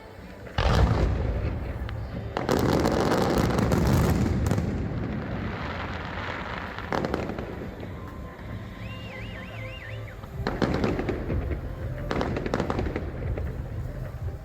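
Aerial fireworks going off: a sharp boom about half a second in, then a long dense crackling from about two seconds that fades out over a few seconds, followed by a few more bangs.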